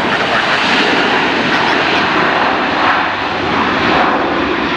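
Engines of a wide-body jet airliner passing at the airport, a steady loud rushing noise.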